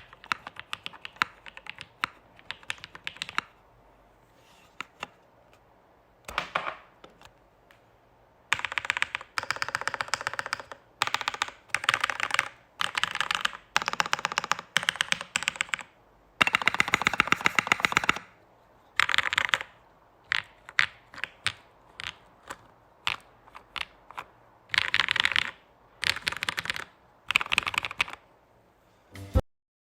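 Typing on an ai03 Polaris custom mechanical keyboard with lubed Durock POM switches, ePBT ABS keycaps, a half aluminum plate and a flex-cut PCB. Keystrokes come in runs, some fast and dense, with short pauses between them. The sound cuts off abruptly just before the end.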